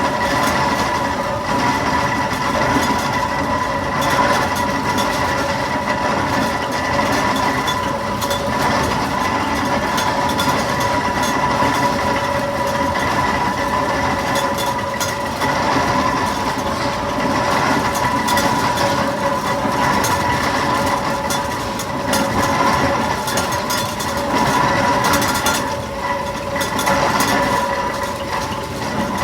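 Fowler BB1 steam ploughing engine travelling on the road: a steady mechanical running sound with a constant whine and continuous light clatter.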